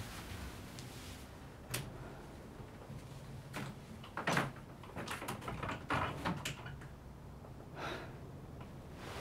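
A few soft knocks and clicks scattered across several seconds, the loudest about four seconds in, followed by a small cluster of lighter clicks.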